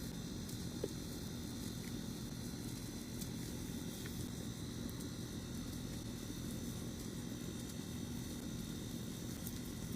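Reformed gym chalk being crumbled by hand: soft, powdery crackling with faint scattered ticks and one sharper crack about a second in, over a steady hiss.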